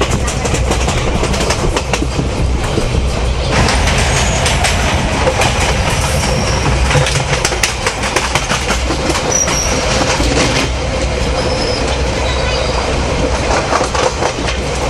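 Passenger train running on the rails, heard through an open barred coach window: a steady rumble with wheels clattering over rail joints and a few brief high squeals. It gets louder about three and a half seconds in, with another train's coach close alongside.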